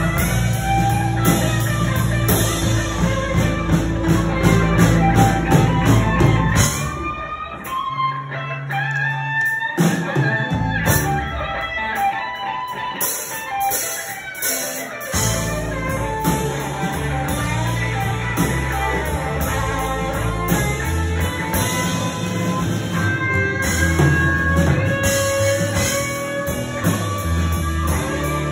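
Live band playing a slow blues, an electric guitar playing lead lines with bent notes over bass and drums. The low end drops away for several seconds about a third of the way in, leaving the guitar more exposed, then the full band comes back in.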